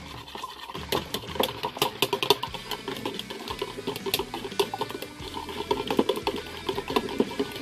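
Wire whisk beating raw eggs in a bowl: quick, uneven clicking and tapping of the wires against the bowl, several strokes a second.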